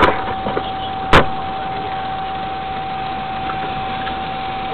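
Steady hiss with a constant thin whine, as picked up by a small onboard camera on a radio-controlled model boat, with one sharp click about a second in.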